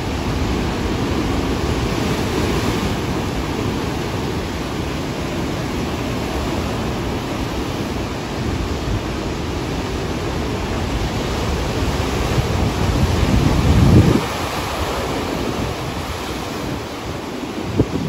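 Heavy surf breaking on a beach: a continuous rushing wash of breaking waves and foam, deep and rumbling. One crash builds to the loudest point about 14 seconds in, then drops away suddenly; another brief surge comes near the end.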